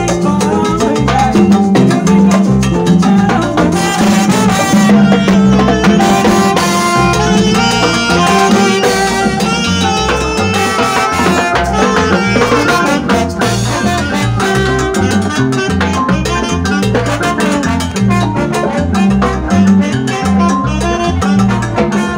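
Salsa music played live on stage through a sound system, loud and continuous, with a steady bass and percussion beat.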